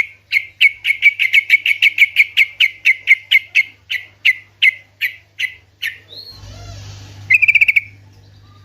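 Yellow-vented bulbul (trucukan) calling: a long run of sharp chip notes, about two dozen, that quicken and then slow. About a second later comes a short, fast chattering trill.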